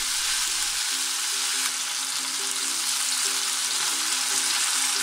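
Chicken thigh pieces sizzling steadily in sesame oil in a frying pan as they are turned with chopsticks. A faint melody plays underneath.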